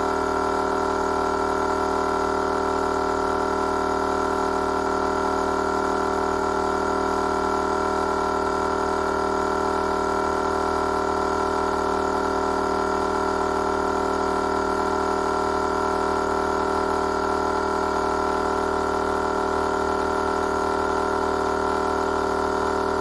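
Bulldog Winch 12-volt air compressor running steadily with an even, constant hum, pumping air through a 4-way manifold line to reinflate four tires.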